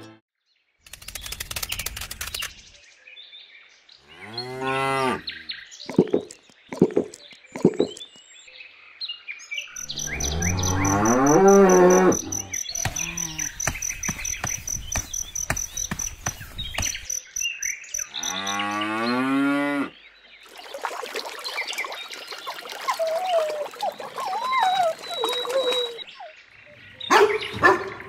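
Cattle mooing: long, low drawn-out calls about four seconds in, again around eleven seconds and near nineteen seconds, with short sharp knocks between them.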